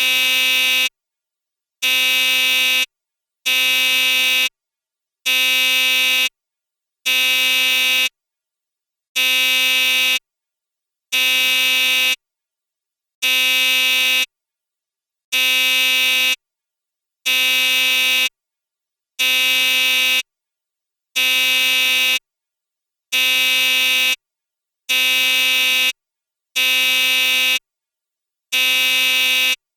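Electric bell buzzer sounding in about sixteen separate buzzes at a steady pitch. Each buzz lasts about a second, with a short silence between buzzes at a fairly even pace.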